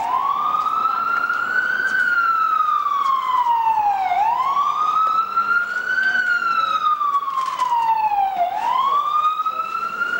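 Emergency vehicle siren in a slow wail, its pitch rising for about two seconds and falling for about two seconds, over and over; loud and close.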